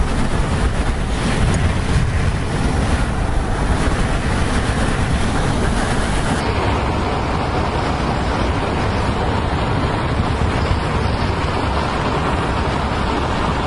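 Steady wind noise buffeting the microphone from a car driving with its window open. The sound changes slightly about six and a half seconds in, with less hiss at the top.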